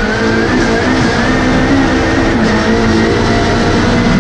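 Turbocharged Honda K-series four-cylinder of a front-wheel-drive Integra time attack car running hard under load, heard from inside its stripped cabin. Its pitch holds fairly steady with a slight rise.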